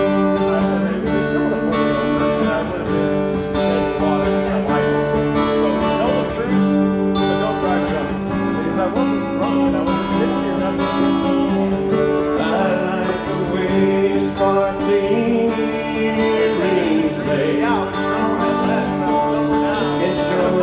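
Live band music: strummed acoustic guitar and electric guitar playing a mellow country-rock tune, with a harmonica melody joining in over the second half.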